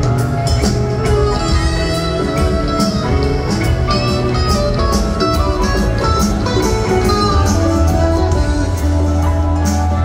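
A live rock band playing: electric guitars over a steady bass line and a drum kit with regular cymbal strikes.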